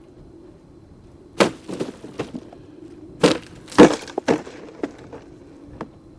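A series of sharp knocks and clatters at irregular intervals, about nine in all, starting about a second and a half in. The loudest comes near the middle. A faint steady hum lies under them.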